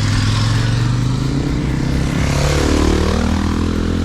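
Adventure motorcycle engine running as the bike pulls away, a steady drone with a hiss above it. About two and a half seconds in, its pitch dips and then climbs again.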